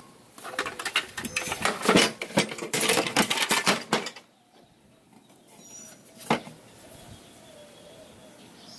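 Hand tools and sockets clattering and clicking as they are rummaged through, for about four seconds, then one sharp click a couple of seconds later.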